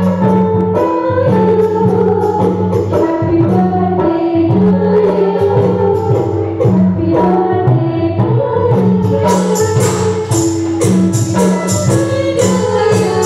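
Live Nepali folk song: women's voices singing into microphones over a keyboard-backed band with a steady percussion beat. The percussion grows brighter and busier about nine seconds in.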